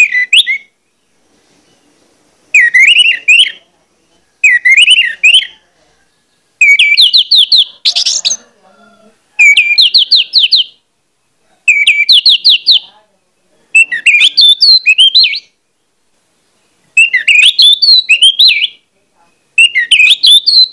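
Orange-headed thrush (anis merah) singing insistently: a run of loud phrases about a second long, each of whistled notes and fast trills, one roughly every two seconds with short pauses between.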